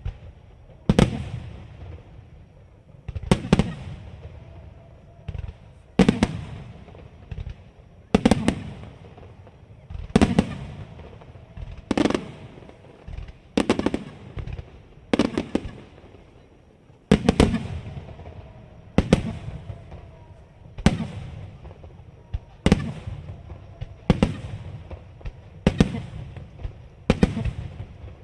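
Aerial firework shells bursting in a steady sequence: one or two loud bangs about every two seconds, each trailing off in an echo.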